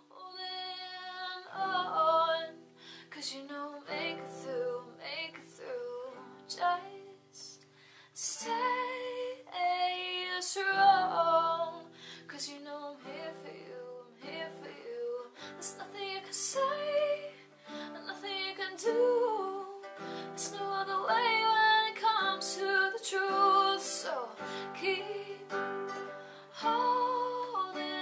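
Background music: a gentle song with acoustic guitar and a female voice singing a slow melody.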